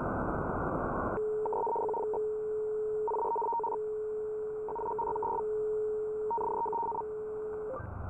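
Shortwave radio audio from a web SDR receiver: band hiss, then about a second in the tuning lands on a signal that gives a steady low tone with a higher beeping tone on top, four beeps about a second and a half apart. Near the end the tone changes to a different pair of pitches.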